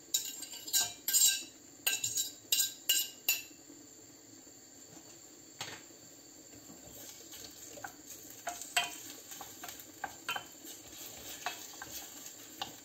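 A ceramic plate clinks and scrapes against the rim of a stainless-steel saucepan as flaked salt cod is pushed off it into the oil, a quick run of sharp clinks in the first few seconds. After a pause, a wooden spoon taps and scrapes in the pan as the cod is stirred in the oil, in scattered light knocks through the second half.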